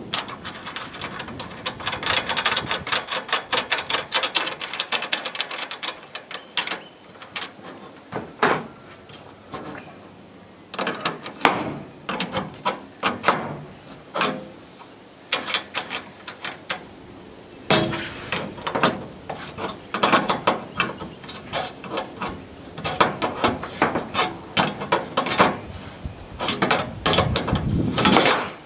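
Hand ratchet clicking in several runs of rapid strokes, with pauses between the runs.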